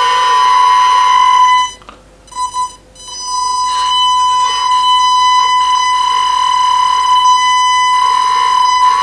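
Hydraulic pump of a 1:14 RC4WD Bobcat R350 track loader model whining steadily as the bucket is worked. It cuts out for about a second and a half near two seconds in, then runs again.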